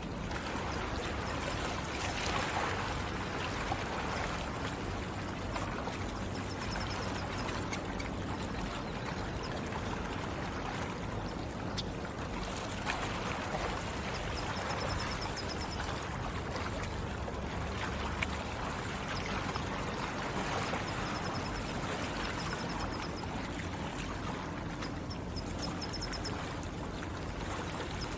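Water running and trickling steadily, swelling and easing every few seconds. A bird's short high trill recurs several times over it.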